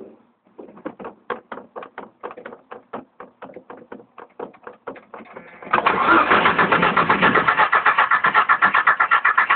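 Jeep Cherokee engine cranking on the starter with even strokes at about five a second, then much louder and denser for the last four seconds before it drops away. This is a crank-no-start that a newly replaced crankshaft position sensor has not cured.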